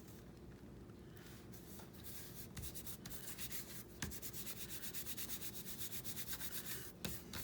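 Quick back-and-forth rubbing strokes on paper, about five a second, starting about two seconds in.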